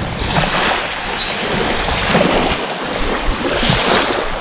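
Seawater washing and lapping in repeated surges, with wind buffeting the microphone.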